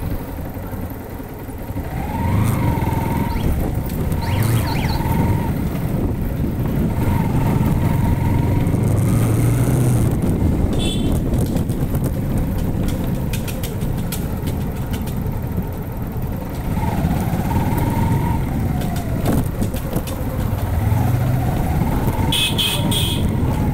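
Bajaj Pulsar NS160 motorcycle's single-cylinder engine running under way, a steady low rumble whose pitch rises and falls now and then.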